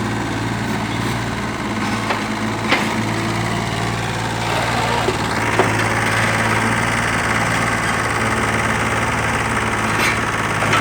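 Hitachi EX30-1 mini excavator's diesel engine running steadily, with a few light clicks. It gets a little louder from about halfway through.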